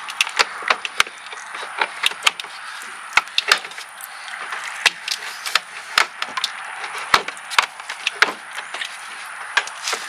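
Metal rear step of a Cricket RX5 golf cart being worked into its square bracket: irregular sharp clacks and knocks of metal on metal as it is jiggled into place.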